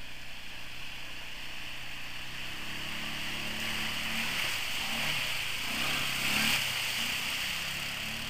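Quad bike (ATV) engine revving up and down as it churns through a deep mud hole, with a rushing hiss of mud and water thrown by the tyres. It is loudest as it passes close by, about six seconds in.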